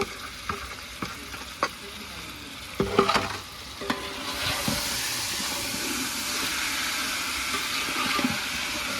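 Chicken with onions and spices being stirred in a pot on low heat: a spoon scrapes and clinks against the pot, with a louder clatter about three seconds in. From about four seconds in the meat sizzles steadily as it fries.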